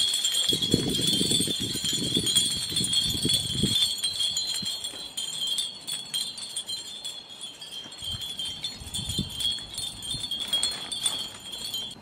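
Wind chimes tinkling on and on, a bright high jangle of many small strikes. There is low rustling and bumping in the first few seconds, as hands work moss onto a wooden birdhouse roof.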